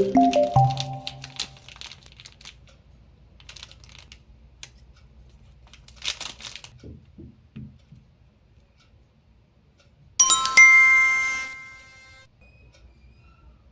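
A few quick musical notes, then faint crinkling of candy wrappers being opened. About ten seconds in comes a bright chime that rings and fades over about two seconds.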